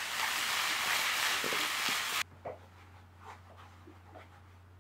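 Onions sizzling as they caramelize in a frying pan over a gas burner: a dense sizzle that stops abruptly about two seconds in. Only faint, soft handling noises follow.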